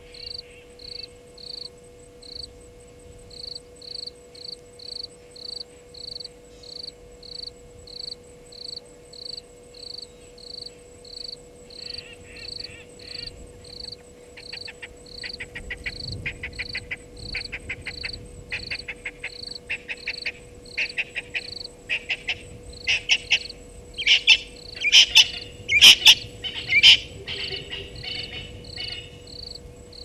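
A cricket chirping in an even rhythm, about three chirps every two seconds, over a low steady hum. From about twelve seconds in, rapid rattling trills join and grow louder, loudest between twenty-four and twenty-seven seconds in.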